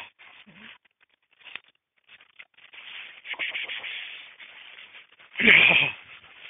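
Rustling and scraping through brush and grass as hunting dogs search for a scent. Near the end comes one loud, short cry, either a dog's bark or a person's shout.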